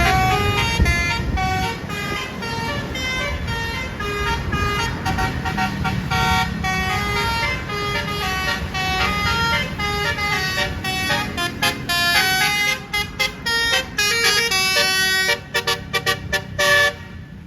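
Tour bus's basuri multi-note air horn playing a quick telolet melody of stepped notes, breaking into a run of short staccato blasts in the second half that cut off suddenly near the end.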